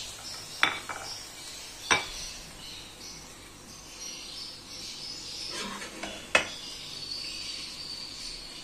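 Metal serving spoon scraping and clinking against a metal pan and a glass dish while halwa is spooned out, with three sharp clinks, the loudest about six seconds in.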